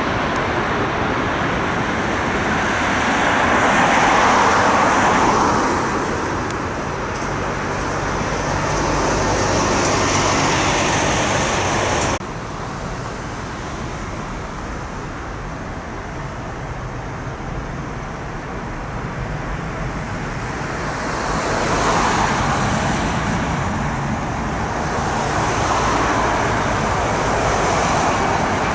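Road traffic passing one vehicle after another, each swelling up and fading over a few seconds. About twelve seconds in the sound drops abruptly to a quieter traffic noise, then the passes build again.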